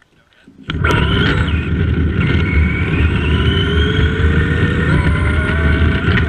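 Tamiya Madcap RC buggy's electric motor and gearbox whining as it pulls away from a standstill, starting suddenly about a second in, with the whine rising slowly as it gains speed. Its tyres rumble loudly on the rough asphalt beneath the bumper-mounted camera.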